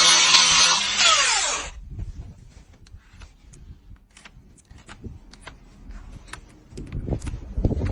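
Power tool motor running loudly, then switched off about a second and a half in, its whine falling as it spins down. Then a quiet stretch with scattered small knocks, and heavier thuds near the end.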